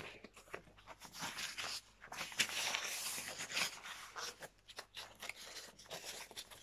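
Rustling and scratchy rubbing as a damp refreshing tissue is wiped over the neck and chest, brushing against clothing, loudest in the middle.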